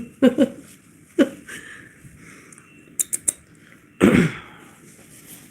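A person's single short cough about four seconds in, with a few faint voice sounds near the start and three quick clicks just before it.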